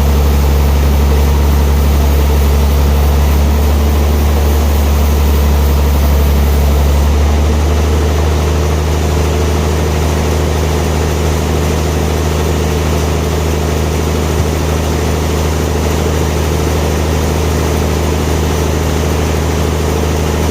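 Sawmill machinery running steadily with a deep, even hum; the tone shifts slightly about seven seconds in.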